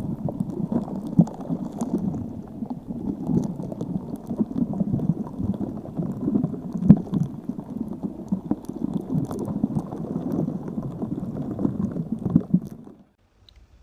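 Muffled water bubbling and gurgling, a dense run of small irregular pops, which stops suddenly near the end.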